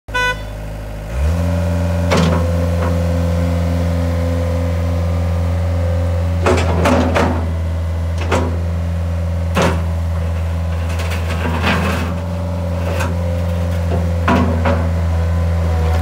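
Mustang MTL16 compact track loader's diesel engine running, stepping up in speed about a second in and then holding a steady drone. Sharp clanks come now and then as the machine tracks over gravel and works its bucket.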